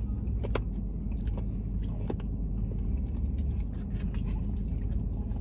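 Steady low rumble with scattered faint clicks and smacks of people eating.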